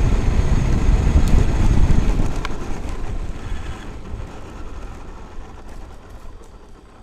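Traxxas X-Maxx RC monster truck running, heard from a camera mounted on it: a dense low rumble of wind and tyre noise that fades away steadily over the last few seconds.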